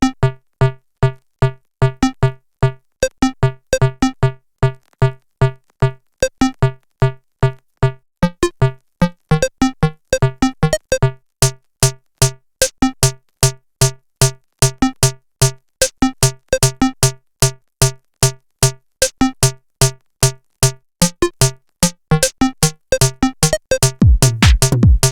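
Electronic juke track: short, clipped synth stabs repeating in a quick, even rhythm, growing denser and brighter. A heavy bass comes in about a second before the end.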